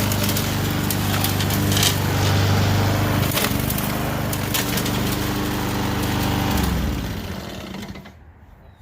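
A powered cutting machine running under load through woody brush, with sharp cracks and snaps of wood breaking; its note shifts twice, then it winds down and stops near the end.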